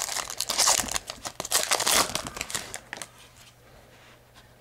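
Metallic foil wrapper of a football trading-card pack crinkling and tearing as it is opened, dense crackling for about two seconds that dies down.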